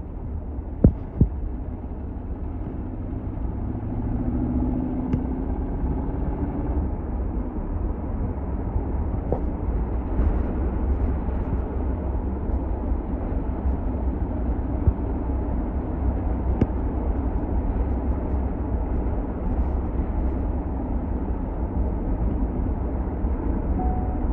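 Steady low rumble of road and engine noise inside a moving car's cabin, with a couple of sharp knocks about a second in.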